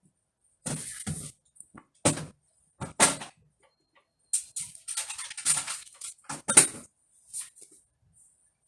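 Handling noises: short knocks, clicks and rustles as a resin ball-jointed doll and its parts are handled, in about six separate bouts with silence between.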